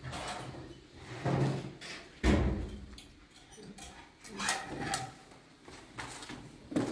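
Kitchen cabinet doors and drawers being opened and shut: a string of separate knocks and bangs, the loudest a heavy thump a little over two seconds in, then lighter knocks and clatter.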